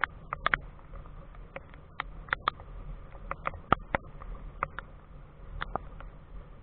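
Scattered raindrops tapping on the camera: a dozen or more sharp, irregular ticks, some in quick pairs, over a low steady background rumble.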